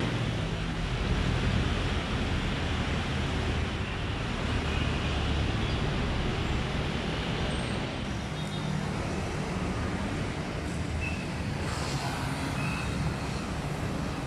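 Road traffic: a steady wash of cars and motorcycles passing on a multi-lane road, with a low rumble. A few faint short high tones sound near the end.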